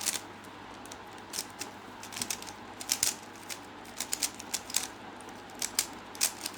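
3x3 Rubik's cube layers being turned in quick succession: a run of irregular sharp plastic clicks, some in quick clusters.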